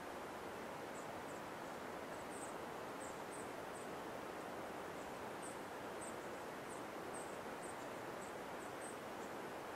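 Steady hiss of quiet forest ambience, with short, very high-pitched chirps coming irregularly, about one or two a second.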